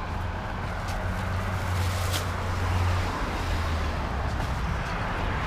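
Steady road-traffic rumble from passing cars.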